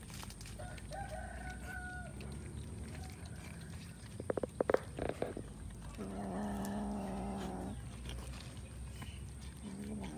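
Animal calls: a few short, sharp calls around four seconds in, then one long, steady call lasting about a second and a half, starting about six seconds in.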